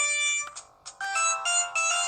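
Samsung GT-E2210b mobile phone playing one of its built-in ringtones, an electronic melody of quick notes. It breaks off briefly about half a second in and picks up again about a second in.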